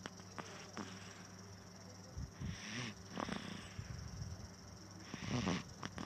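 Baby snoring in sleep, with two noisy breaths about two and a half seconds apart.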